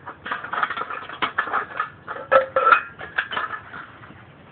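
Tin-can wood-gas stoves scraping and clattering as they are slid one inside another, tin on tin, with a run of quick knocks and scrapes that is loudest about halfway through and dies away near the end.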